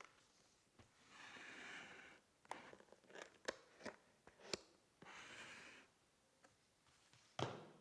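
Keyboard packaging being handled: two soft rustling swishes of a second or so each, several light clicks and taps, and a heavier thump near the end.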